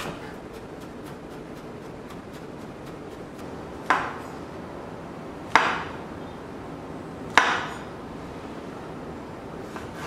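Three sharp knocks of something hard striking a hard surface, about a second and a half to two seconds apart, each with a brief ringing tail, over a steady background hiss.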